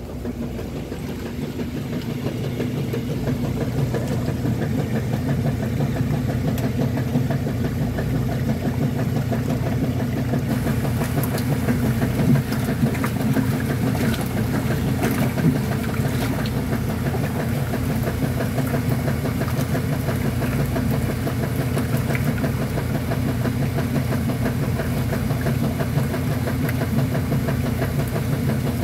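Kenmore top-load washing machine running with a steady motor hum that grows louder over the first few seconds, then holds.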